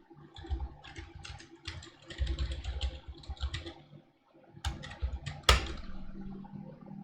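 Typing on a computer keyboard: irregular runs of quick keystrokes, a short pause past the middle, and one louder keystroke about five and a half seconds in.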